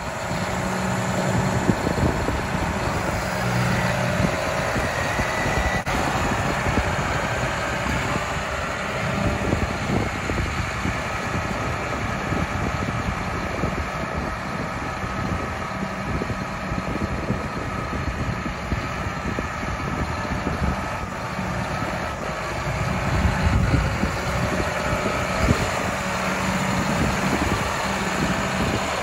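John Deere 6190R tractor's six-cylinder diesel engine running at a steady low speed as the tractor drives by, with a constant engine hum and a few brief surges in low rumble.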